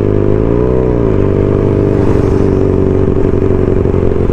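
Motorcycle engine running under way. The revs rise and drop back within the first second, then hold at a steady pitch.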